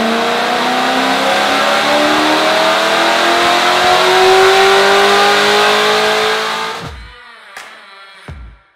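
Supercharged 6.2-litre LT4 V8 of a C7 Corvette Z06 at full throttle on a chassis dyno, its revs climbing steadily in one long pull for about seven seconds before cutting off. A few beats of music follow near the end.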